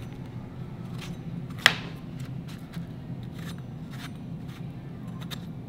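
Kitchen knife scoring a crosshatch into roasting eggplant halves on a metal sheet pan: a run of light, short cutting clicks over a steady low hum, with one sharp, louder click about one and a half seconds in.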